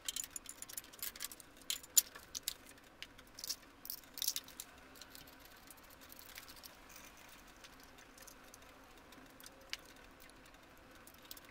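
Light metallic clicks and rattles as the chrome sprocket-and-chain cover and its bolts are handled and fitted back onto the motorcycle. The clicks are frequent for the first few seconds, then sparse, over a faint steady hum.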